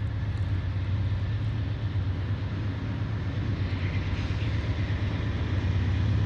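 Diesel locomotives of an approaching freight train running with a steady low drone that grows slightly louder.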